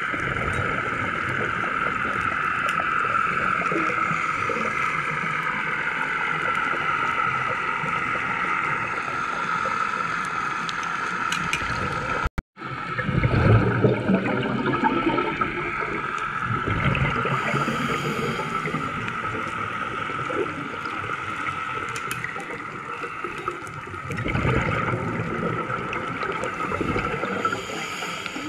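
Underwater sound from a scuba diver's camera: a steady water hiss with bursts of gurgling from exhaled regulator bubbles, loudest just after a brief dropout about halfway through and again near the end.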